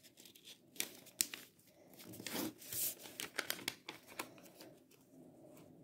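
Sheet of origami paper crinkling and crackling as it is folded and creased by hand, a run of crisp little clicks and rustles that dies away for the last second or so.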